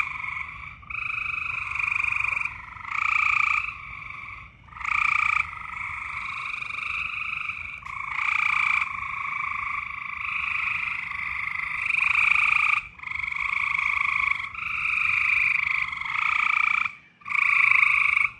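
A loud chorus of frogs croaking. Many calls of about half a second to a second each overlap in a nearly unbroken stream, with a short lull near the end.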